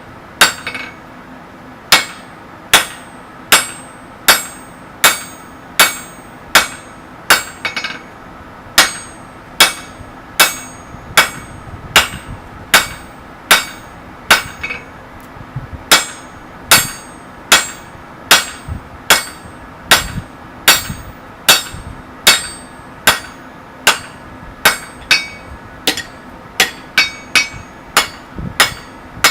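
Hammer blows on hot mild steel against an anvil, struck at a steady pace of a little over one blow a second, each with a short bright metallic ring. Near the end comes a quicker run of lighter blows.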